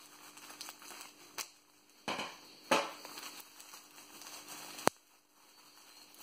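Plastic bubble wrap crinkling and rustling as a taped, wrapped bundle is unwrapped by hand, with several sharp crackles and clicks, the sharpest about five seconds in.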